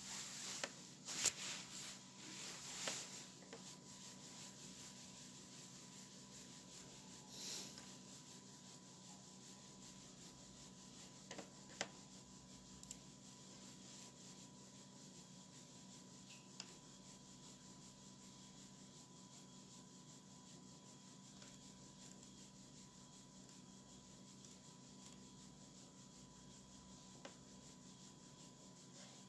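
Near silence with a faint steady hum, broken by a few brief rubbing or scraping noises in the first seconds and once more about seven seconds in, then a few faint clicks.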